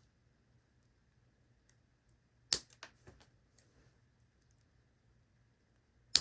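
Wire cutters snipping through thin alarm wire. There is a sharp snap about two and a half seconds in, with a few lighter clicks after it, and another sharp snap with a quick run of clicks near the end.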